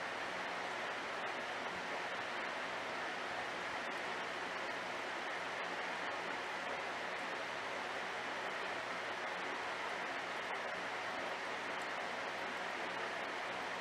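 Steady, even rush of aquarium water flow and aeration, with a faint low hum underneath.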